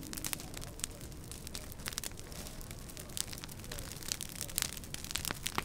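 Brush-pile fire burning, with irregular sharp crackles and pops over a steady hiss.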